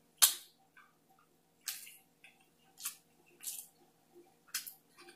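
Close-miked chewing of a mouthful of deep-fried breaded crab leg: five short, crisp crunches about a second apart, the first the loudest.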